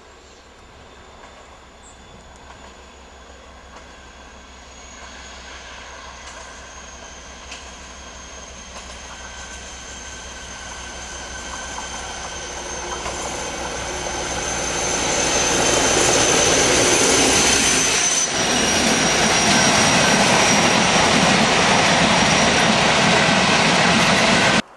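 Class 56 diesel-electric locomotive, with its Ruston-Paxman V16 diesel engine, growing steadily louder as it approaches and passes, then coal hopper wagons rolling by loudly and steadily. A high steady whine falls slowly in pitch through the pass.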